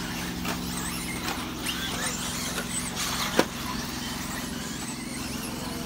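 Radio-controlled cars racing on a track: many short rising and falling motor whines as the cars accelerate and brake, over a steady low hum, with one sharp crack a little over three seconds in.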